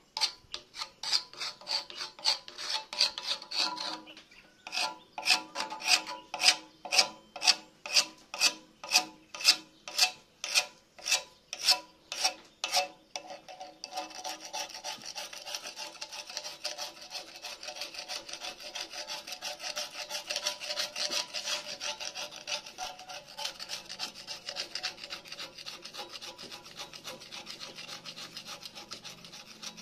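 Flaking paint being scraped by hand off a Sonalika tractor's metal front bumper. Quick strokes at first, then slower, distinct strokes about two a second, then fast, continuous scraping from about halfway through.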